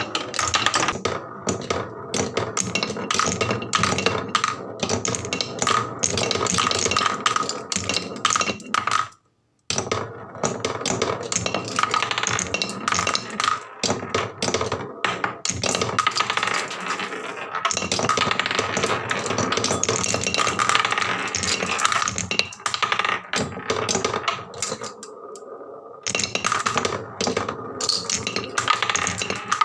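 Many glass marbles rolling and clattering down HABA wooden slope tracks in a dense stream of clicks and clacks, with a steady ringing under them. The sound cuts out for a moment about nine seconds in.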